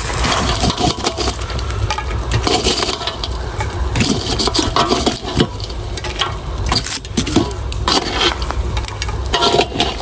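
Metal tongs clinking and scraping as burning charcoal embers are picked up and set down on a cast-iron Dutch oven lid, giving scattered irregular knocks and clicks, over a steady low rumble.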